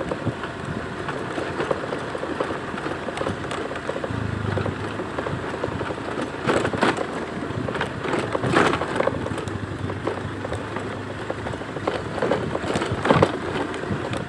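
Steady rain falling, with a few louder taps of drops standing out now and then.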